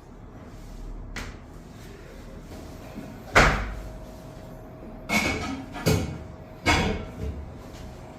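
Four sharp knocks of chiropractic adjustment thrusts on a treatment table. The loudest comes about three and a half seconds in, and three quicker ones follow a couple of seconds later.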